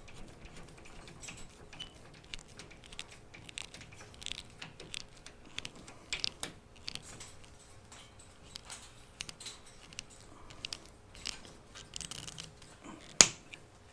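Screwdriver turning a screw into the aluminum sliding-door frame: scattered small metallic clicks and scrapes, with one sharper click near the end.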